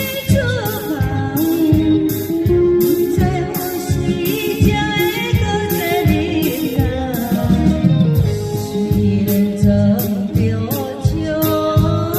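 A band playing a song with lead vocals over guitar and drums at a steady beat.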